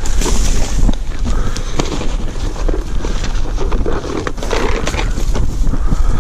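Wind buffeting the microphone, with rustling of dry brush and of a backpack's fabric and a string of sharp clicks and knocks as gear is handled.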